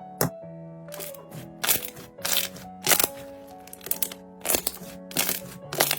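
Background music with held notes, over which slime being squeezed and pressed by hand gives about eight irregular, sharp pops and crackles.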